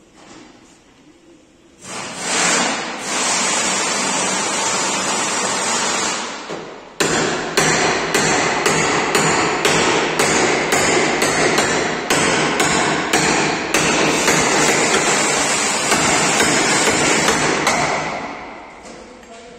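Repeated hammer blows on metal, about two a second, over a loud steady noise that starts about two seconds in; the blows begin about seven seconds in, and both fade out near the end.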